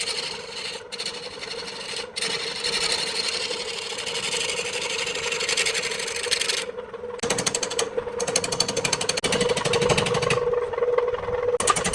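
Power tool working wood: a motor hums steadily under a scraping hiss. After a brief dip about seven seconds in, a rapid rattling chatter starts.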